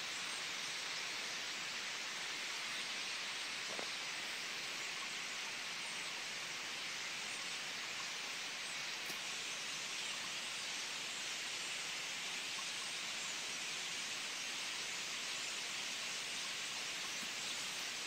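A huge flock of black birds calling all at once, their chatter merged into a steady, even hiss with a few faint single calls standing out.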